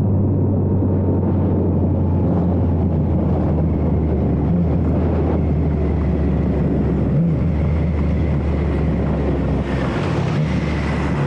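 Triumph Trident 660's inline three-cylinder engine through a Zard full exhaust, running in a steady low drone as the bike slows from highway speed, mixed with wind rushing over the helmet microphone.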